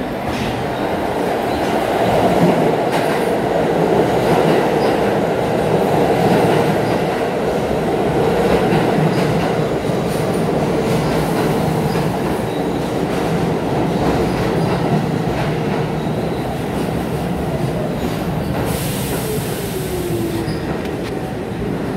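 An R46 subway train pulling into the station and braking: a steady rumble of wheels and cars on the rails, loudest a few seconds in as the cars run past, easing off as it slows. Near the end a falling whine and a short burst of hissing mark the train coming to a stop.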